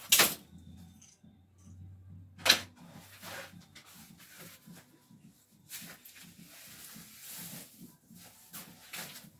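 Handling of a rolled-up blind: two sharp clacks about two seconds apart, then a stretch of rustling as the blind is unrolled, with light knocks in between.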